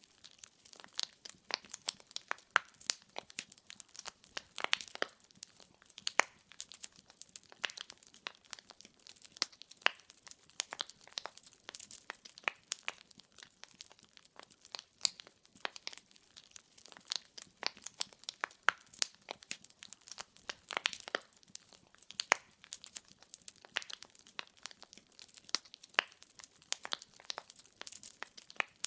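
Wood logs burning in a fireplace, crackling and popping continually with many sharp, irregular snaps over a soft hiss.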